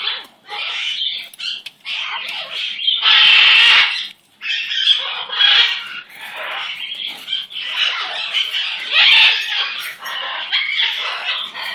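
Pet parrot calling and chattering in a run of harsh, choppy squawks, loudest from about three to four seconds in and again around nine seconds.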